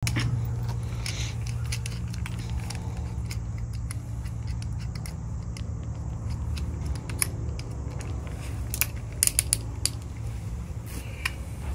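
Small clicks and metallic rattles of a drill bit being fitted and tightened into a cordless drill's chuck, with a quick run of clicks about nine seconds in. A steady low hum sits underneath.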